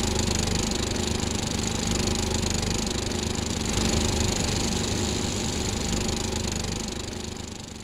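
A steady mechanical running noise, like a motor, with a low hum under a broad whir. It fades out near the end.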